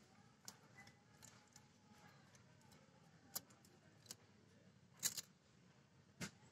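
Near silence broken by scattered faint clicks and rustles, the strongest a quick pair about five seconds in, from wet fish and plastic sheeting being handled at a boti fish-cutting blade.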